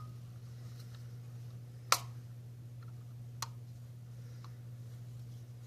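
A few small, sharp plastic clicks, the loudest about two seconds in and two fainter ones after it, over a low steady hum: the snap-fit clips of a smart plug's plastic housing giving as the case is pried apart.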